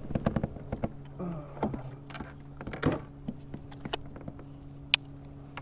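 Scattered light knocks and clicks of fishing gear, such as a landing net and rod, being handled on a plastic fishing kayak, over a steady low hum.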